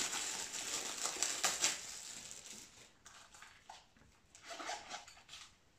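Clear plastic wrapping crinkling and rustling as it is pulled open by hand. The rustling is busiest for the first two seconds or so, then thins to a few softer crinkles.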